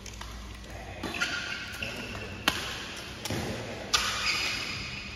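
Badminton rally: rackets striking the shuttlecock, two sharp smacks about a second and a half apart, with short squeaks of shoes on the court mat in between.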